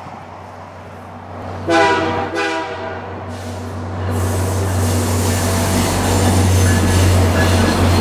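VIA Rail F40PH-2D diesel locomotive horn sounding two short blasts about two seconds in. Then the engine drone and wheel noise of the approaching locomotives grow steadily louder.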